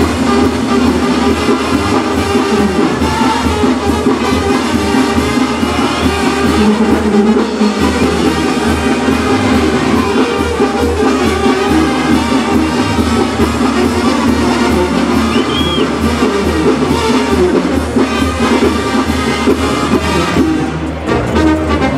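Brass band music with trumpets, trombones and drums over a steady, pulsing bass beat.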